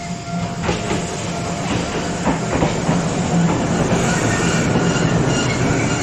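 Keifuku Randen tram running in close alongside the platform, growing louder. A low running hum carries a few wheel clacks over rail joints early on, and a light wheel squeal comes in over the last couple of seconds.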